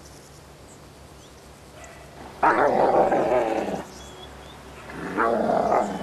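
Wolves growling at each other in two bouts, a longer one about two and a half seconds in and a shorter one about five seconds in.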